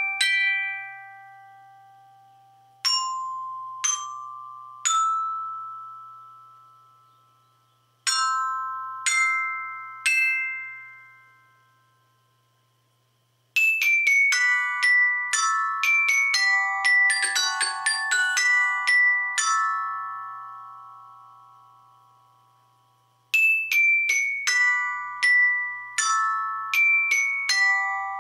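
Glockenspiel bars struck by solenoid hammers. First come three single notes rising a step at a time, then three chords, each about a second apart. After that the instrument plays a quick tune from a file. Each note starts with a sharp click and rings on, fading over a few seconds.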